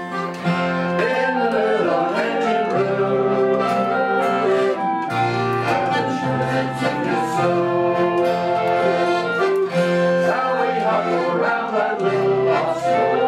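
Live acoustic folk music: an instrumental break between verses of a song, with long held melody notes over a bass line that changes every second or two.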